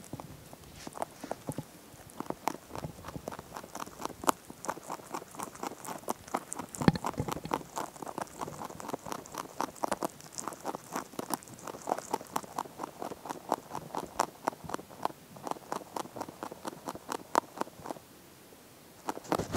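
Pet rabbit chewing a stalk of hay close to the microphone: a quick run of crisp crunching clicks, several a second, that stops about a second and a half before the end.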